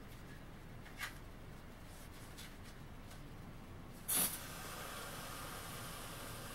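Homemade CO2 air submachine gun: a faint click about a second in, then about four seconds in a short sharp burst of gas followed by a steady hiss of CO2 escaping, the sign of the gun leaking gas.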